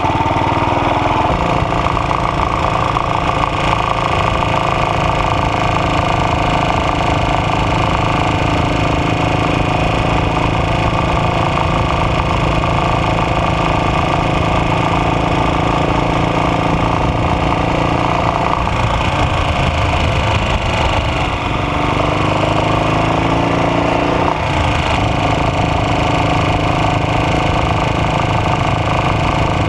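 AJS Model 8 motorcycle engine running steadily with a knock, its revs shifting briefly about twenty seconds in before settling back.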